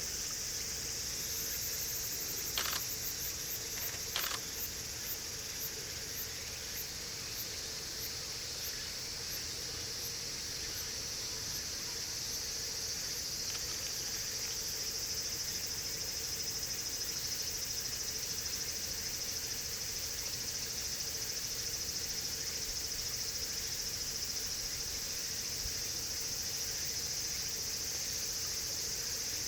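A steady, high-pitched chorus of calling insects, with two sharp clicks a few seconds in.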